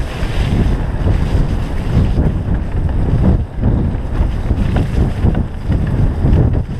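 Wind buffeting the microphone of a camera on a fast-moving mountain bike, with a steady rumble and irregular knocks and rattles as the bike runs over a rough, rooty dirt singletrack.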